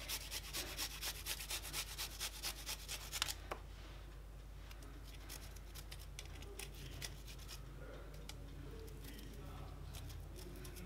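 Garlic powder shaken from a spice shaker over raw chicken wings: an even scratchy rattle at about five shakes a second that stops about three and a half seconds in, leaving only a few faint taps.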